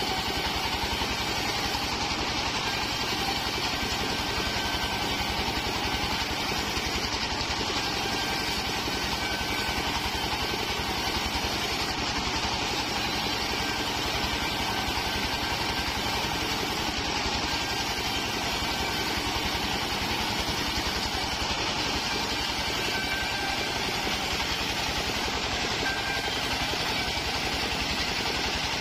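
Stationary diesel engine running steadily, driving a portable bandsaw sawmill as its band blade cuts waru (sea hibiscus) planks, the cutting noise steady over the engine.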